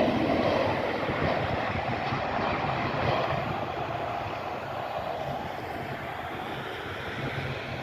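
Jet engine noise of an American Airlines Boeing 737-800 passing on approach, a steady rush that slowly fades as the airliner moves away.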